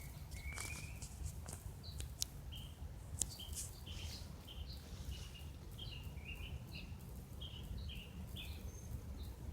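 Small birds chirping, a quick run of short high notes repeated over several seconds, over a faint steady low rumble.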